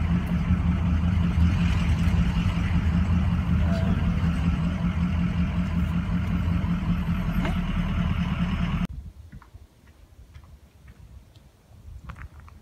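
Ford Super Duty pickup driving slowly, heard inside the cab: a steady low engine drone with road noise. It cuts off abruptly about nine seconds in, leaving quiet outdoor sound with a few faint ticks.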